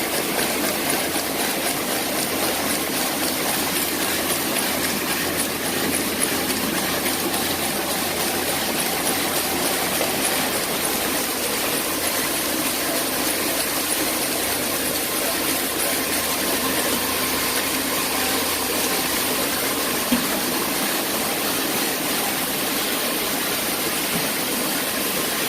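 Sock knitting machine running steadily: a continuous mechanical whirr and hiss with fine, rapid ticking, and one sharp click about twenty seconds in.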